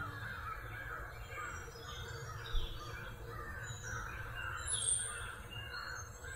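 Birds calling outdoors in a steady run of short repeated notes, over a low steady background rumble. There is a short knock about two and a half seconds in.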